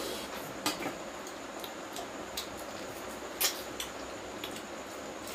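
Eating sounds at a table: scattered small clicks and smacks of chewing and of fingers and utensils against stainless steel plates and bowls, the loudest about three and a half seconds in, over a steady hiss.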